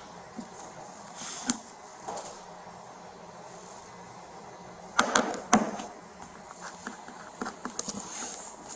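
Handling noises at a table over a steady room hum: soft paper rustles, then a cluster of sharp knocks about five seconds in, followed by lighter ticks and taps near the end.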